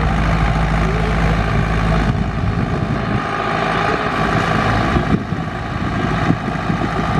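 Kirloskar four-cylinder diesel tractor engine running steadily under load while pulling a cultivator, with an abrupt change in the sound about two seconds in.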